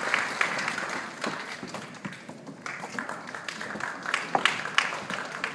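Audience applauding, the clapping dying down after about two seconds, with a few scattered louder claps about four to five seconds in.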